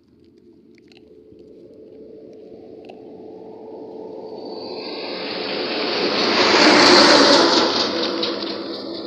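A heavy truck driving past close by: its noise builds steadily for about seven seconds, peaks, then starts to fade as it goes by.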